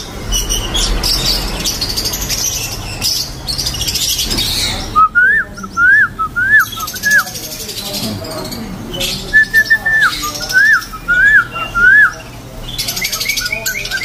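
Caged songbirds chirping in high twitters, then two runs of loud, clear whistled notes, each note sliding up and dropping, about three a second.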